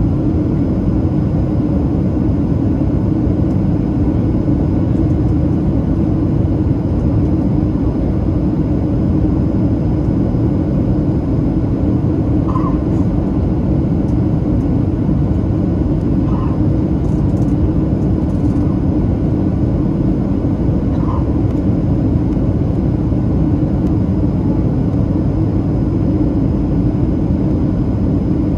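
Steady cabin noise inside a Boeing 737-700 airliner on approach: the low rumble of the CFM56-7B engines and the rush of air over the fuselage. Three faint, short tones come in the middle part.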